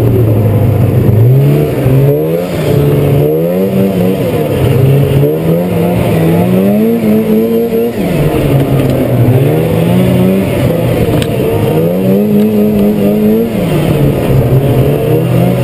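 Polaris 500 Indy Trail Touring snowmobile's two-stroke engine being ridden hard, its pitch rising and falling again and again with the throttle. It holds steady briefly at first, then revs up and down roughly every one to two seconds.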